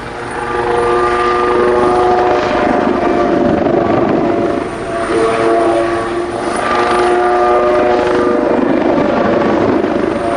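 Kawasaki OH-1 helicopter flying past, its rotor and turboshaft engines making a loud rushing noise that swells and eases every couple of seconds. Several sustained tones sound above it, changing pitch every second or two.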